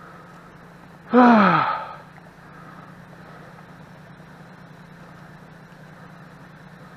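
A man's loud groan, falling in pitch, about a second in and lasting under a second, over the steady low hum of a pickup truck's engine idling.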